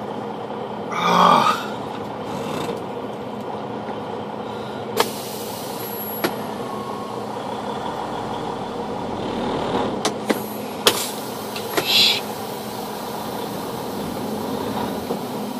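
Inside the cab of a semi truck: the diesel engine's steady hum. A few sharp clicks and two short breathy sounds, about a second in and near the end, rise above it.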